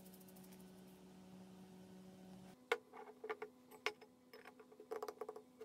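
A low steady hum, then from about two and a half seconds in a string of sharp metallic clicks and knocks: small steel parts, a bolted metal disc and a metal filter canister, being handled and set down on a wooden workbench.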